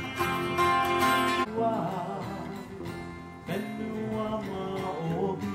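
Music: a song with strummed acoustic guitar, changing abruptly about a second and a half in to a quieter passage with a wavering melody line.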